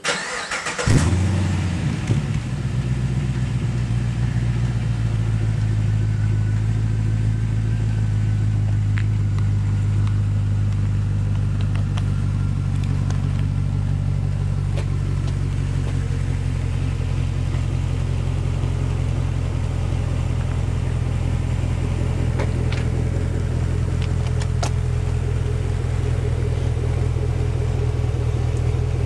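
2008 Pontiac G8 GT's 6.0-litre L76 V8 starting up through a Magnaflow cat-back exhaust: it fires, flares briefly about a second in, then settles into a steady low idle.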